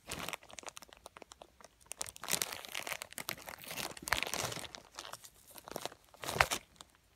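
Rustling and crinkling of fabric close to the microphone, as the mattress fabric and its black non-woven bottom cover are brushed and moved, with irregular sharp clicks. It starts suddenly, with the loudest rustle about six and a half seconds in.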